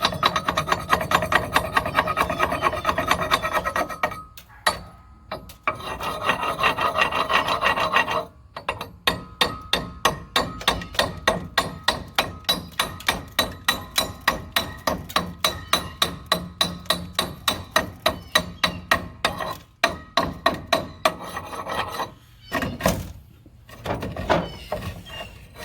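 A steel wire brush scrubbing a freshly laid weld, in quick, even back-and-forth strokes of about four or five a second, pausing briefly twice. The engine-driven welder idles underneath as a steady low hum.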